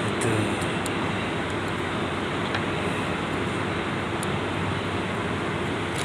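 Steady background noise, with a few faint clicks.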